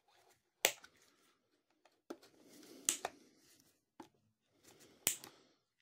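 Cardboard and plastic toy packaging being handled and pulled apart: about five sharp clicks and snaps with soft rustling between them.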